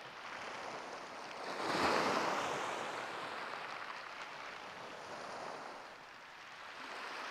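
Waves breaking on a shingle beach: one wave swells up about two seconds in and washes away, with another building near the end.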